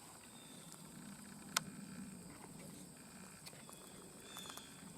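Quiet outdoor ambience with insects trilling steadily at a high pitch and a faint low rumble, broken by a single sharp snap about a second and a half in.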